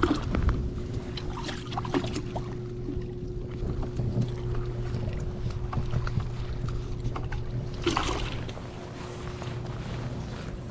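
A steady low motor hum with a thin whine above it, under scattered crunches of footsteps on gravel and clothing rubbing against the microphone, with a louder rustle about eight seconds in.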